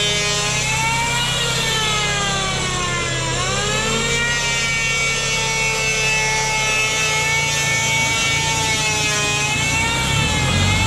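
Engine-driven saw cutting through timber: a steady high running note that dips sharply in pitch about three seconds in, then climbs back and holds.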